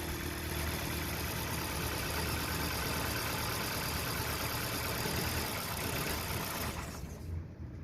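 A Kia Rio's engine idling steadily, then cutting out about seven seconds in as the negative command to its engine control relay is removed.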